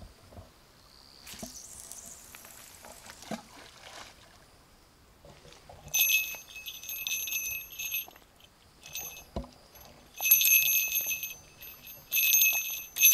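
A small fishing bell on a rod or line jingling in several short bursts, each a second or two long, starting about six seconds in.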